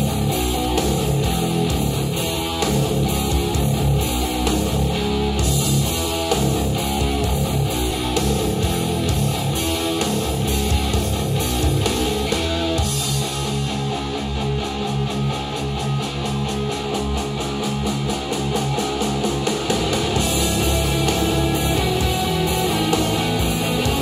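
Rock music with strummed electric guitar and bass over a steady beat, played back through pairs of Edifier powered bookshelf speakers and picked up by microphones in the room.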